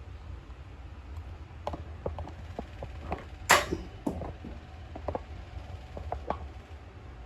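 Light clicks and knocks of tools and hardware being handled, with one sharp, loud knock about three and a half seconds in, over a low steady hum.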